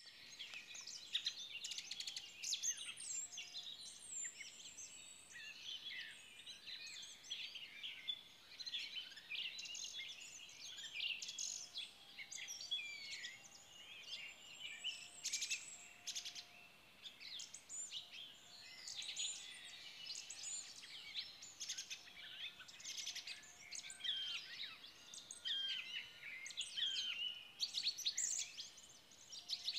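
Several songbirds singing at once, a dense overlapping chorus of high chirps, trills and warbles that carries on without a break.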